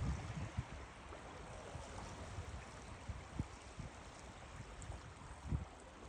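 Faint, steady outdoor background noise, with low rumble and a few short low knocks on the microphone.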